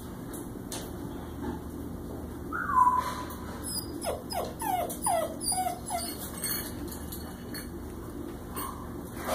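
Puppies whining: one drawn-out whine about three seconds in, then a quick run of about six short whimpers, each falling in pitch. A steady low hum runs underneath.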